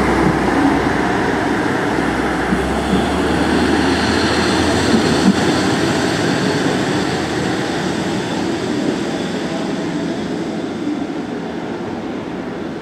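Ise Railway Ise-III type diesel railcar running past and away down the line, its engine and rail noise fading steadily as it recedes.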